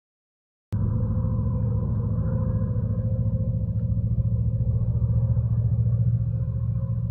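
Heavy truck's engine running as it drives along, a loud, steady, deep rumble that cuts in abruptly about a second in.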